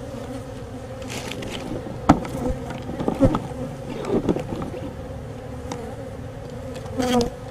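Honey bee colony buzzing steadily, the hum of a disturbed hive as its comb is being cut out. A few sharp knocks and clicks break in about two, three and four seconds in.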